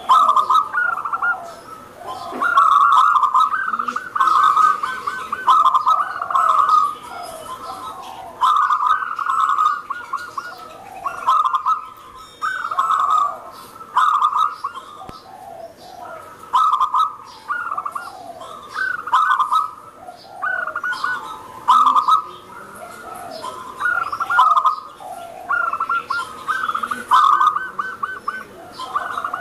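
Zebra dove (local perkutut) singing: loud, rapid rolling coo phrases repeated every one to two seconds, with softer falling notes between them.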